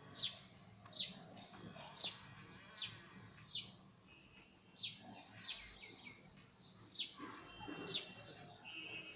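Sparrow chirping: a run of short, sharp chirps, each dropping quickly in pitch, repeated roughly once a second.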